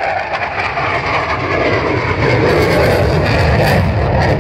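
Fighter jet flying past, its jet engine noise a loud, steady rush that grows a little louder about halfway through.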